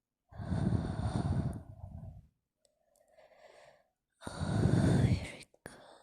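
A woman sneezing twice in a sneezing fit. The two loud sneezes come about four seconds apart, with a short breath drawn between them.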